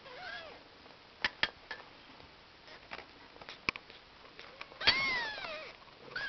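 Kittens mewing: a faint short mew at the start and a louder, drawn-out mew about five seconds in that rises and then falls in pitch, with a few light clicks in between.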